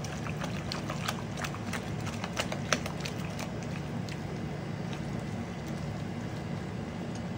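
Silicone spatula stirring a thick cream-cheese and vegetable mixture in a glass bowl, giving irregular soft clicks that thin out after about three and a half seconds, over a steady low hum.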